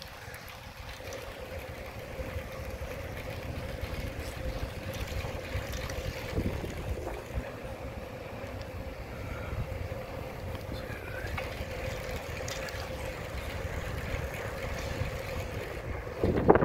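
Wind rushing over the microphone and a low rumble of riding along a paved path, with a faint steady hum underneath. A short, louder burst comes just before the end.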